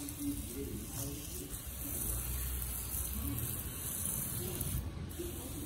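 Water spraying from a garden-hose spray wand onto potted succulents and their soil, a steady hiss.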